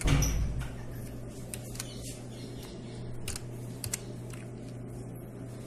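A few scattered computer keyboard key presses, sharp single clicks, as two numbers are typed in at a program's prompt, over a steady low hum.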